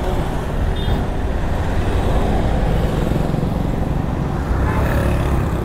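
BMW G 310 GS's single-cylinder engine idling steadily at a standstill, with road traffic going by.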